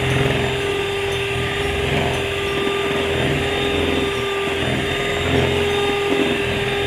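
Cosmos CM-1279 electric hand mixer running steadily, its beaters whipping thick, fluffy sponge-cake batter, with a constant motor hum.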